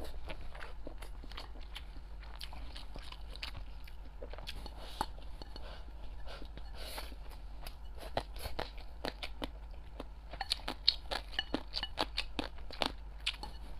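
Close-up chewing and crunching of a mouthful of rice with crunchy dried radish strips: a run of short crisp crunches that grows denser and louder in the last few seconds.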